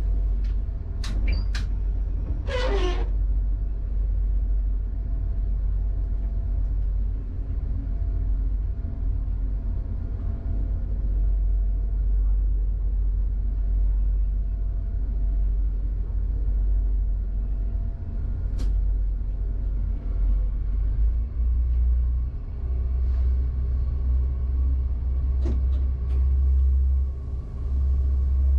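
Steady low rumble of an SNCF AGC (B82500-series) regional train rolling slowly through a tunnel, heard from inside the driver's cab. A few brief clicks sound near the start, with a short wavering screech about three seconds in; the rumble grows heavier near the end.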